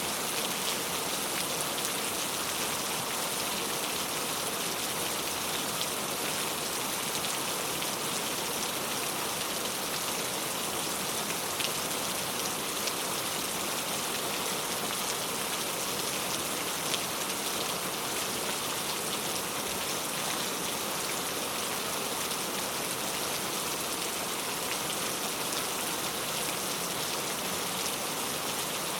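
Heavy rain falling steadily, a dense even hiss of drops hitting surfaces, with a few sharper individual drop ticks now and then.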